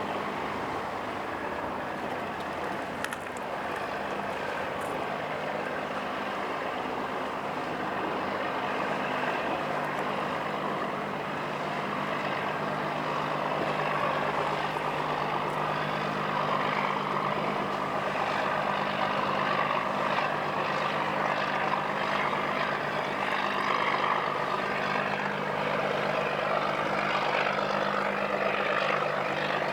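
Tugboat's diesel engine running steadily under load while towing a barge, its low hum growing louder from about halfway through as it passes closer, over a steady rushing noise of wind and choppy water.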